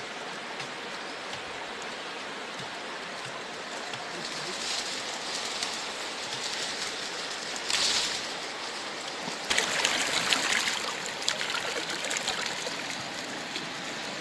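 Stream water running steadily, with louder sloshing and splashing about eight seconds in and again between about nine and a half and eleven seconds as the pool's water is stirred.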